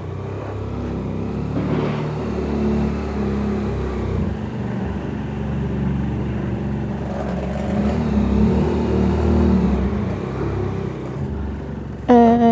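BMW F800GS parallel-twin engine running as the motorcycle pulls away and rides slowly, its revs rising and falling with throttle and gear changes. A brief loud pitched tone starts near the end.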